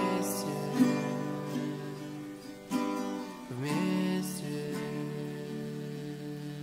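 Music: a slow, sad acoustic guitar backing track, with plucked and strummed chords ringing on.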